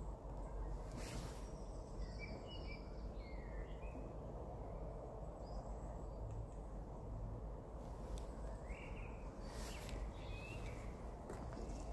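Wild birds singing: two spells of short chirping phrases, a couple of seconds in and again near the end, over a steady low outdoor rumble.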